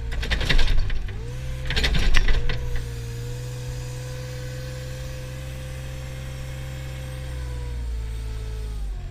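Mustang compact loader's engine running under load, with two loud bursts of noise in the first three seconds while the bucket works the grass pile, the engine note sagging with each. It then runs steadily and its pitch falls near the end.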